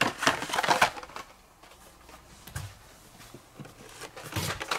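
Packaged Hot Wheels cars in card-and-plastic blister packs being handled: crackly plastic-and-card rustles and clacks. A cluster comes in the first second and another shortly before the end, with fainter handling noise between.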